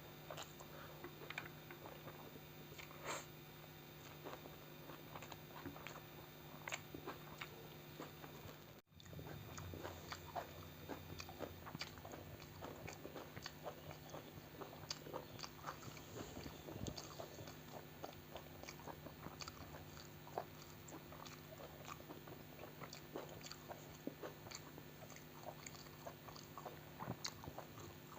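Close-miked chewing and mouth sounds of a person eating, a steady run of many small irregular clicks over a faint low hum. The sound cuts out for an instant about nine seconds in.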